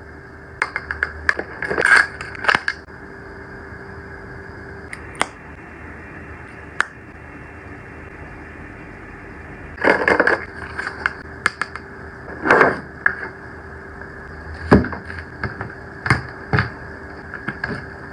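Hands handling a makeup palette and a storage box with drawers and a clear plastic tray: scattered clicks and taps and a few short scrapes of plastic and metal, over a steady faint hum.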